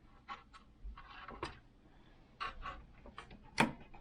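Hands handling the opened sewing machine's casing and parts: scattered light clicks and knocks with a short scrape about a second in, and the sharpest click near the end.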